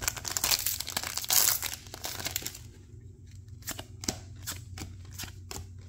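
Foil trading-card booster-pack wrapper crinkling and tearing as it is ripped open by hand, loudest about a second and a half in. Then a run of short, sharp snaps as the cards are flicked through one by one.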